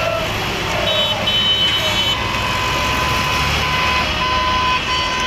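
Farm tractors driving past on a motorway below, their engines running, one rumbling louder as it passes close underneath in the middle. Vehicle horns sound over it in long held blasts and shorter toots.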